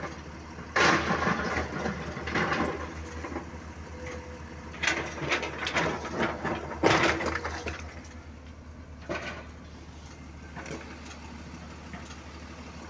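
Excavator bucket raking into a pile of broken quarry boulders: rock grinding, tumbling and crashing in four loud bouts over the first eight seconds, then a couple of smaller knocks. A steady low diesel engine hum runs underneath.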